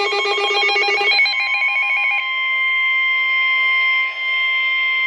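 Weather-radio alert: rapid warbling data tones for about two seconds, then the steady single-pitch warning alarm tone that signals an incoming warning, here a flash flood warning.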